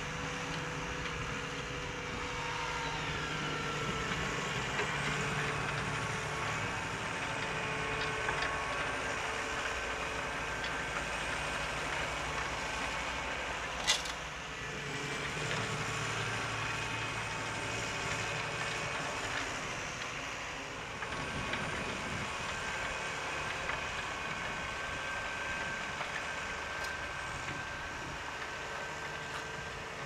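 New Holland T7.210 tractor's six-cylinder diesel engine running steadily under load while pulling a mounted reversible plough, with one sharp click about halfway through.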